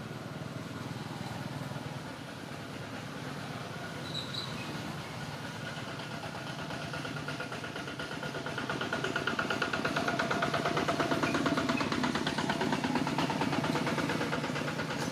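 A motor vehicle's engine running steadily with a fast, even pulse, growing louder in the second half.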